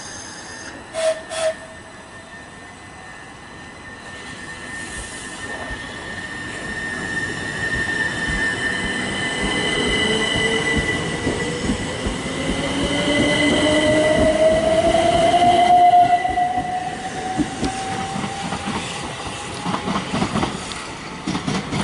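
Southern Class 377 Electrostar electric multiple unit running along the platform. Its traction motors whine in a slowly rising pitch over steady high whistling tones and wheel-on-rail noise, growing louder before falling away near the end. Two brief sharp sounds come about a second in.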